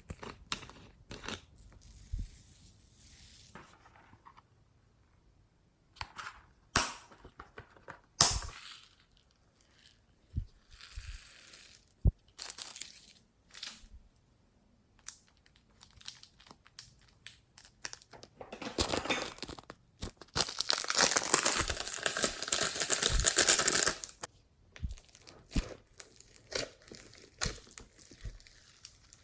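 Hands squeezing and stretching glossy slime: sticky clicks, pops and crackles, with a louder, denser run of crackling from about 19 to 24 seconds in.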